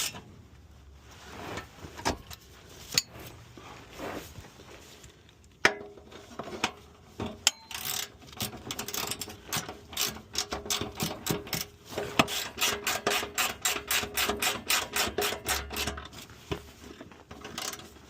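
Hand ratchet wrench clicking as a 12 mm bolt is turned: scattered strokes at first, then a long quick run of clicks, about four a second, near the middle and end.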